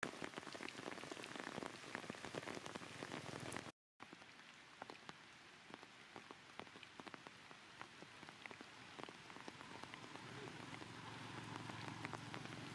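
Light rain and water drops pattering and dripping on surfaces, with many small separate drop ticks. The sound cuts out completely for a moment just before four seconds in, then resumes as a softer patter, and a faint low hum joins near the end.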